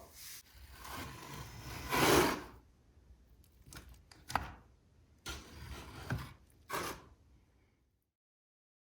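Trowel scraping tile adhesive across a wall in several irregular strokes, the longest and loudest about two seconds in, with shorter scrapes after it.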